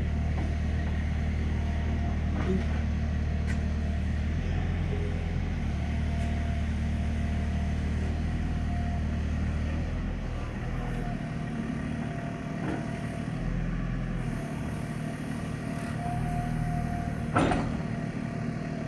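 Mini excavator's diesel engine running steadily, its low hum shifting about halfway through, with one sharp clank near the end.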